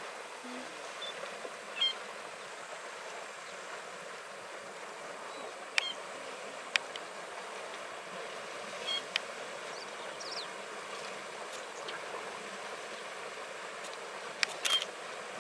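Steady bush ambience with insects buzzing, broken by a few short high bird chirps and several sharp clicks.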